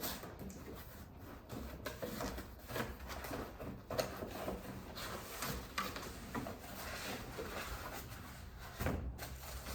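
Packaging being handled during an unboxing: cardboard box parts sliding and rubbing, with scattered light knocks and taps.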